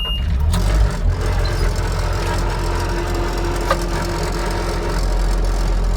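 A Bobcat HB 980 hydraulic breaker on a skid steer hammering at concrete in a dense, rapid pounding over the loader's steady engine rumble.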